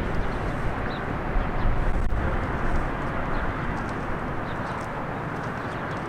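Steady outdoor rushing noise, easing slightly in level, with a few faint short bird chirps; no siren tone is sounding.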